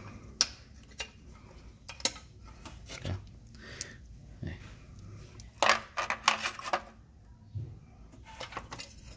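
Scattered metallic clinks and clicks of steel bolts and a small sheet-metal cover being handled and knocked together by hand, with a busier run of clinks about six seconds in.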